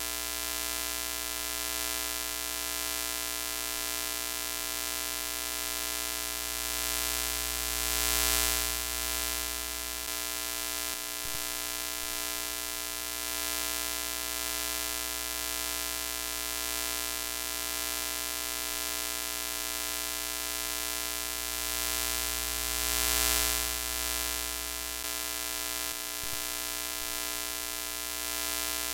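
Broken-TV glitch sound effect: a steady electrical buzz with many overtones under a hiss of TV static. The hiss swells briefly twice, about eight seconds in and again near twenty-three seconds.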